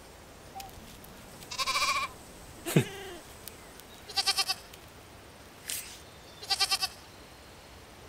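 Goats bleating three times, each call a quavering, trembling bleat about half a second long, with a brief sound sliding steeply down in pitch between the first two.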